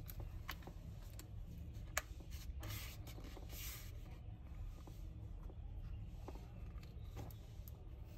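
Faint handling sounds of a laptop display assembly: scattered light clicks and taps from its plastic bezel and metal hinges, with a sharper click about two seconds in and a couple of brief rubbing scrapes around three to four seconds in.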